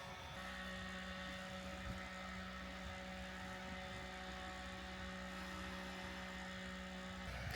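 Small portable electric fan running with a steady hum.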